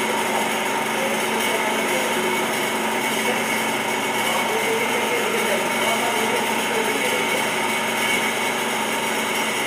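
Centre lathe running with its electric motor, headstock gear train and step pulley turning: a steady machine whine with several fixed tones that does not change.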